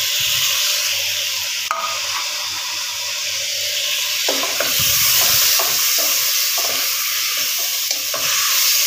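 Chopped tomatoes sizzling steadily in hot oil in a pot of fried bitter gourd and onions. From about four seconds in, a wooden spatula stirs and scrapes through the pot in irregular strokes.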